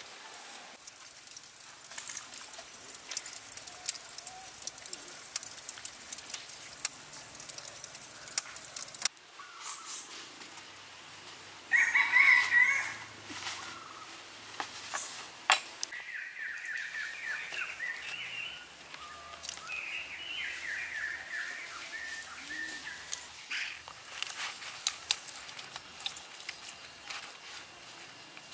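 A rooster crowing three times, the first call short and loudest, the next two longer and wavering in pitch.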